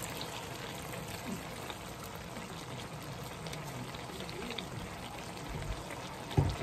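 Vinegar poured from a plastic bottle into a hot frying pan of diced pork innards at the start, over the steady low sizzle of the pan. A brief loud thump near the end.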